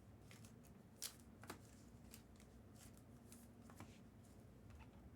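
Faint, scattered clicks and rustles of trading cards being handled, slid and flipped through by hand, the sharpest about a second in.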